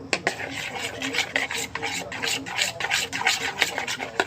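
A utensil scraping around a container as slime glue is stirred with boric-acid water activator, in repeated rasping strokes about three a second with an occasional click against the side.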